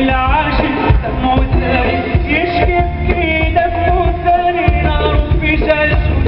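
Live Arabic pop band playing in concert: a male singer over strings, keyboards and percussion, with wavering melodic lines above a steady low drum beat.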